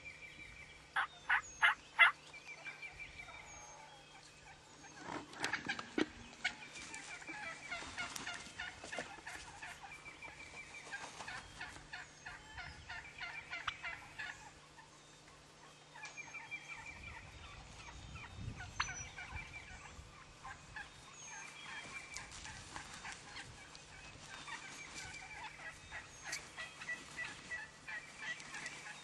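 Wild turkeys gobbling repeatedly at close range, the toms coming in to a decoy. The loudest series of gobbles comes about a second or two in, with more rattling calls at intervals after it.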